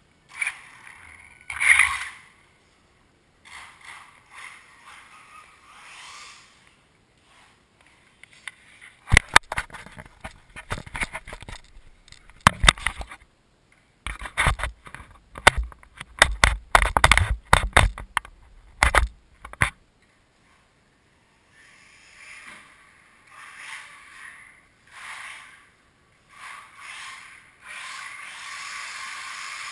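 Losi Mini 8ight electric RC buggy running on an indoor floor: tyres scrabbling and hissing in short bursts. A dense run of sharp knocks and clatters in the middle stretch, then a steadier hiss near the end.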